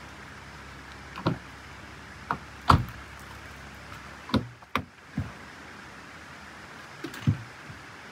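Scattered knocks and thumps of gear being handled against a car and a Mitsubishi Outlander's rear side door being opened, with about eight separate bumps. The loudest bump comes near three seconds in, and a sharp pair of clicks about four and a half seconds in.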